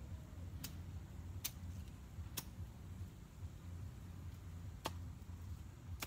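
Faint low rumble with about five sharp, separate clicks spread through it.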